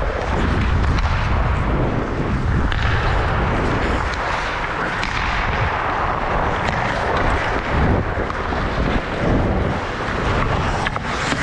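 Outdoor ice hockey play: heavy rumbling buffeting on the microphone over a steady hiss, with a few sharp clacks.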